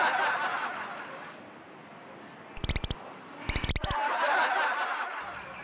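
Laughter fading away, then a comic sound effect in two short bursts of rapid stuttering clicks, after which the laughter swells up again.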